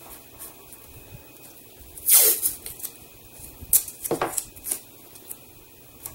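Blue painter's tape being pulled off its roll and torn, a short loud rasp about two seconds in and another near four seconds, with fainter rustles of the tape being handled and pressed down.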